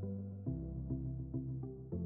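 Instrumental background music: sustained pitched notes over a low bass, with new notes struck about every half second and the bass changing about half a second in.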